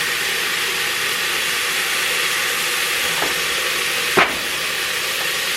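Lean ground beef sizzling steadily as it browns in an electric kettle, with a sharp knock about four seconds in.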